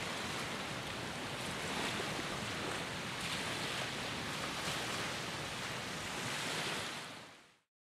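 Sea waves washing onto the shore, a steady rushing that swells a little and fades out about seven seconds in.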